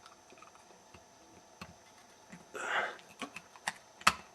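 Small metal clicks and a brief scrape as a shim cut from an aluminium beer can is worked with pliers beside a combination padlock's shackle, ending just after four seconds in with one sharp snap: the shackle springing open.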